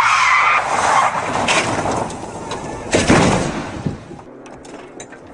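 A rally car sliding off the road: tyres squeal near the start, then there is a loud noisy burst about three seconds in, and it goes quieter after that.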